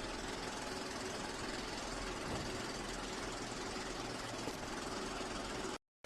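Steady machine hum, like a motor or fan running, unchanging throughout; it cuts out abruptly for a moment near the end.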